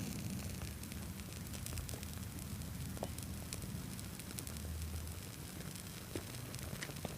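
Prawn crackers burning, with scattered small crackles and pops over a low steady rumble.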